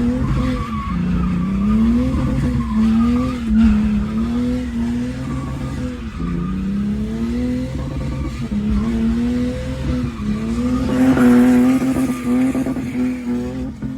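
Drift car's engine revving up and down repeatedly as the throttle is worked through a slide, with the tyres skidding and squealing on the pavement. The revs peak loudest about three quarters of the way through.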